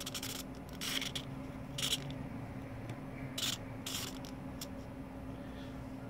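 Small RC servo whirring in about six short bursts as its third-position endpoint is adjusted, each move lasting about a quarter second, over a faint steady hum.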